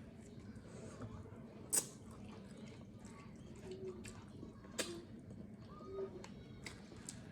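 Wet, squishy mouth and hand sounds of eating eba with vegetable soup: chewing, smacking and finger-licking, with two sharp clicks about two and five seconds in.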